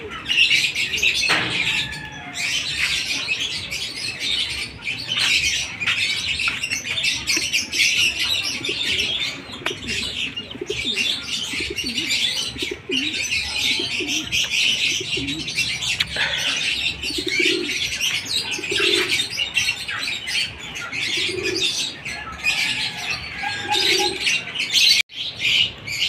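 Racing pigeons in a loft: a continuous din of high chirping and twittering, with a pigeon cooing several times in the second half.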